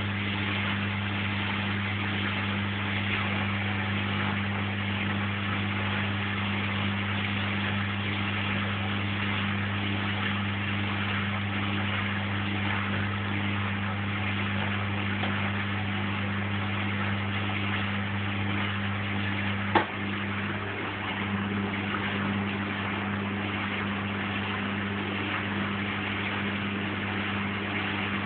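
Lynx 4TS-710A washing machine running an empty final rinse: a steady hum over an even wash of water and machine noise, with a single sharp click about twenty seconds in.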